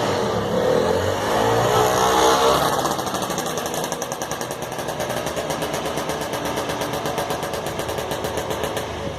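A small motor vehicle engine, its pitch rising and falling for the first three seconds or so, then running at a steady, evenly pulsing beat.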